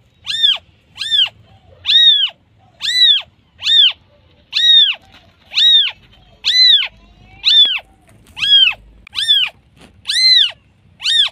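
Newborn kitten mewing over and over, calling for its mother: short, high-pitched calls that each rise and fall in pitch, about one a second.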